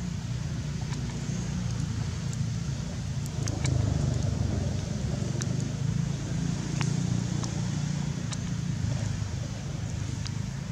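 Steady low background rumble with scattered sharp, faint clicks.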